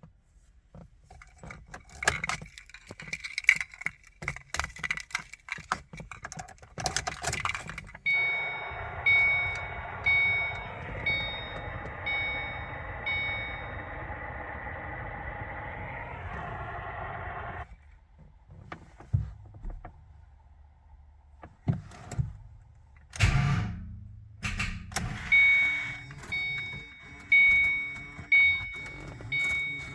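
Car keys jangling and clicking. Then a car's dashboard warning chime repeats about once a second over a steady hum, stops, and after a loud knock starts again. No engine is heard running, fitting a 2007 Shelby GT500 that will not start.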